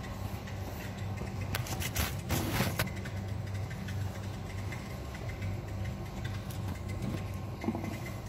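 Steady low mechanical hum. About two seconds in there is a brief burst of rustling and knocks as the phone is moved.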